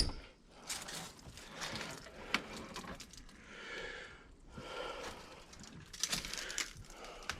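Faint scuffing, rustling and creaking as someone moves into an old slide-in truck camper, with a sharp click at the very start.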